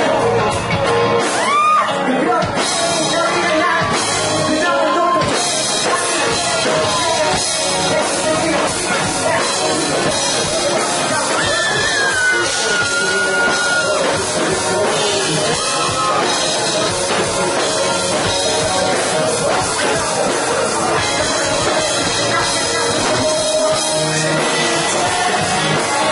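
Rock band playing live, loud: male vocals over electric bass, guitars and a drum kit.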